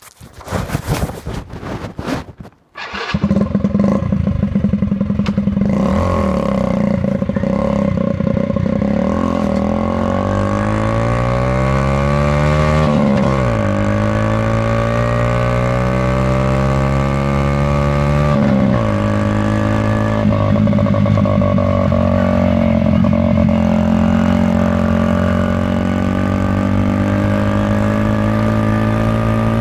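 Honda Magna 50's small single-cylinder engine, breathing through its stock muffler with the baffle removed, under way: after a couple of seconds of clatter and knocks it pulls, its pitch climbing through the gears with two upshifts where the pitch drops, then settles into a steady cruise.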